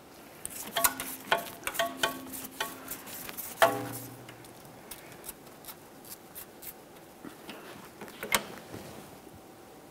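Irregular light metallic clicks and clinks, several with a short ring, as the crankshaft position sensor's mounting bolts are worked out with hand tools. A louder ringing clink comes about three and a half seconds in, then only sparse faint ticks.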